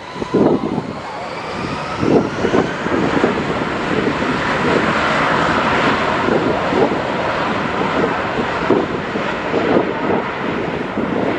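Airbus A321-231's twin IAE V2500 turbofan engines at high power as the airliner rolls down the runway on its takeoff run. A steady jet roar swells to its loudest about five seconds in, with whining fan tones sliding in pitch.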